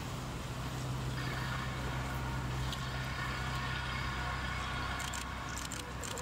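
Steady low hum of a motor vehicle engine running, with a faint hiss above it.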